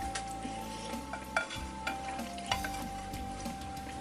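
Quiet eating at the table: a fork twirling spaghetti against a spoon in a bowl, with a few light clicks, under soft background music playing a slow melody of held notes.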